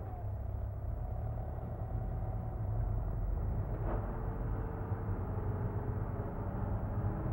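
A truck's engine running steadily: a low drone with a few held tones above it. A single click about four seconds in.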